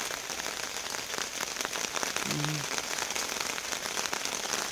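Steady rain falling on a tent, a constant hiss dotted with the ticks of individual drops.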